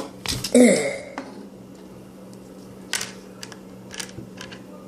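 A short vocal exclamation about half a second in, then a few scattered light clicks and taps of a plastic Transformers action figure being handled and bent into shape.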